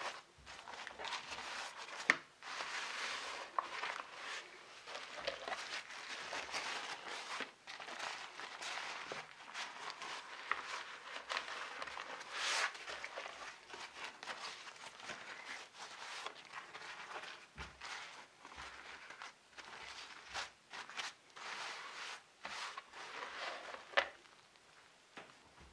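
Wet parchment paper crinkling and rustling as hands crumple and fold it around a joint of meat, with a couple of sharper crackles, one about two seconds in and one near the end.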